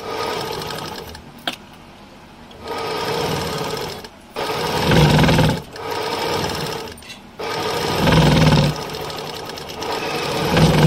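Sewing machine stitching fabric, running in spurts of one to three seconds separated by short pauses, some spurts louder and faster than others.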